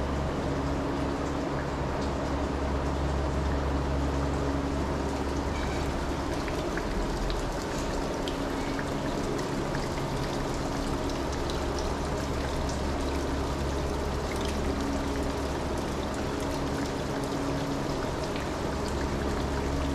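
Greenhouse ambience: a steady rushing noise like running water, over a low, steady mechanical hum, with a few faint ticks.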